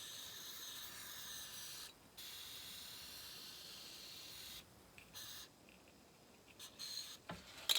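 Aerosol Vaseline spray hissing in two bursts of about two seconds each, then a short third spurt, applied to lubricate the chainsaw's rubber intake parts. A few faint clicks near the end.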